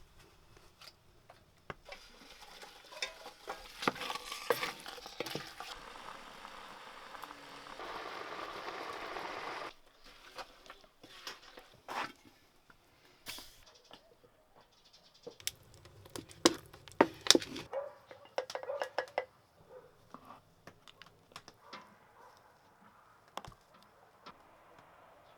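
Kitchen work sounds: scattered clinks and knocks of pots, utensils and dishes, with a steady hiss lasting a couple of seconds about eight seconds in and a run of louder knocks a little past the middle.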